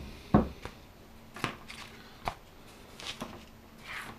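Scattered light knocks and rustles of EPP foam airplane parts being picked up and handled on a tabletop, with the sharpest knock about half a second in.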